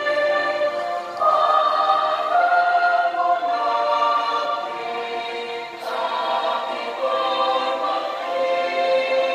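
A large group of students singing an Indonesian national patriotic song together, as a choir, in slow held notes that step to a new pitch about once a second.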